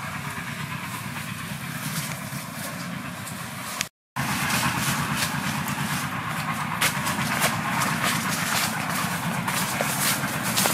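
Dry leaves and twigs on a forest floor rustling and crackling as people shift and then walk through them, over a steady outdoor hiss. A brief silent gap comes about four seconds in, and after it the snaps and crunches come thicker.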